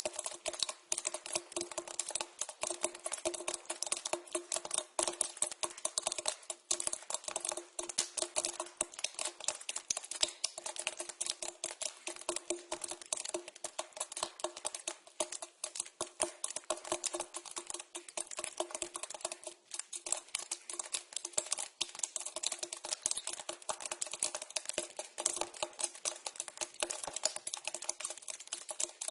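Water dripping into a pipe: a rapid, irregular patter of drops, with a steady low ringing note from the pipe beneath them.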